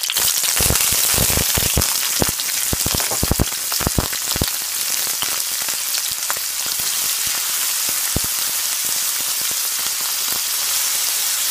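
Spring onion, sweet pepper and cayenne pepper frying in hot vegetable oil in a pot: a loud sizzle with a flurry of sharp spattering pops over the first few seconds, settling into a steady sizzle.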